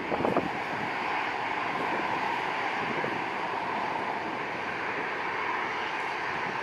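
Boeing 737-800's CFM56 turbofan engines running at taxi power as the airliner rolls past, a steady jet hum and rush.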